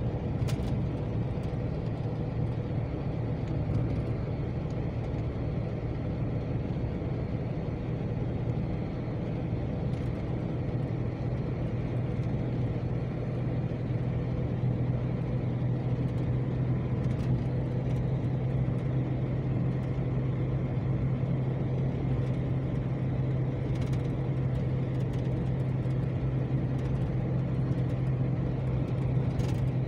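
Steady engine and road noise inside a moving vehicle's cabin, with a constant low drone.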